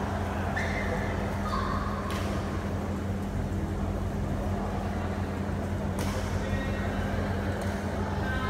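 The end of a badminton rally. Two brief shoe squeaks on the court come near the start, then a sharp racket-on-shuttlecock hit about two seconds in, with another sharp knock about six seconds in. A steady low hum and crowd murmur run underneath.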